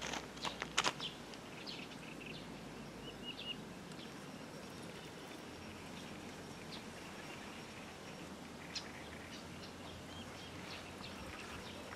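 Faint outdoor ambience with a few short, high bird chirps now and then, and a couple of light clicks in the first second.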